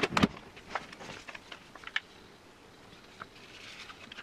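Two sharp knocks at the start, then scattered light taps and clicks and a soft rustle near the end: a paper guillotine and a sheet of vinyl being handled and cut.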